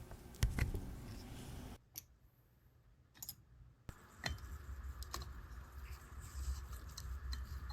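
Scattered light clicks and taps of small metal tools and parts as an 18K gold pocket watch is handled and opened up, a handful of separate ticks with a near-silent gap just before the middle.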